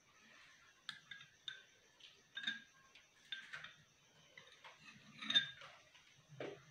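Close-miked eating sounds: a metal spoon clicking and scraping against a small glass bowl as a creamy food is scooped, with wet mouth smacks between. The clicks come irregularly, about a dozen, the loudest about five seconds in.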